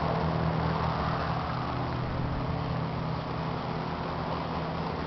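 Tractor-driven forage and grain mill running with a steady machine hum.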